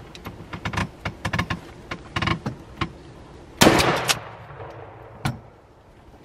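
A run of sharp clicks and taps, then one loud shotgun blast a little past halfway that fades out over about half a second, as a tom turkey is shot. A single sharp knock follows about a second and a half later.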